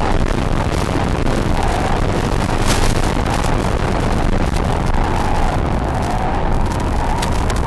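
Radio-control model jet in flight, heard from its onboard camera: a steady rush of wind over the microphone, with a faint motor whine that wavers up and down in pitch.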